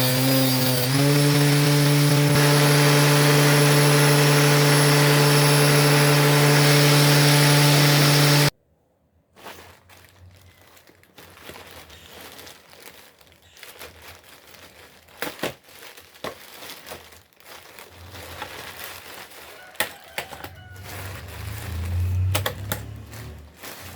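Woodworking power tool's electric motor running steadily with a loud whine, its pitch dipping briefly near the start, then stopping abruptly about eight seconds in. After it come quieter scattered clicks, knocks and rustling as wood and tools are handled.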